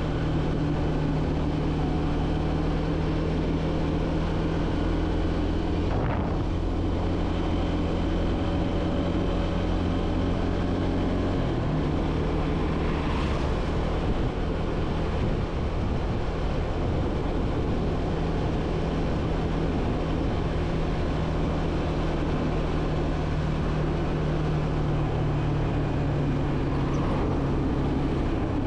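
Motorcycle engine running steadily at cruising speed in fourth gear, with wind noise over it. The engine note steps slightly about twelve seconds in.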